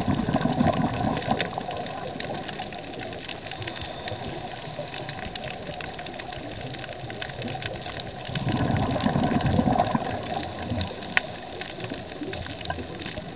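Underwater recording: a scuba diver's exhaled regulator bubbles gush past the microphone twice, about eight seconds apart, over a steady hiss with scattered crackling clicks.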